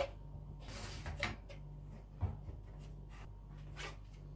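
A plastic drip tray being handled and fitted to a two-tier metal wire dish drying rack: a few light knocks and clatters of plastic against the wire frame, the sharpest about two seconds in.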